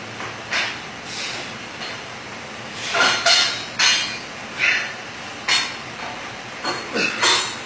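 A set of preacher cable curls on a cable machine: a series of short rasping bursts, a fraction of a second each, coming every half second to a second and bunching up in the second half, from the cable, pulley and weight stack moving and the lifter's effort.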